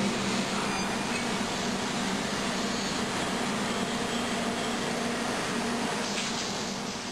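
Automatic drilling machine running: a steady mechanical noise with a low hum, easing off near the end.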